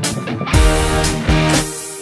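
Background music led by guitar, with low thumps at a regular beat.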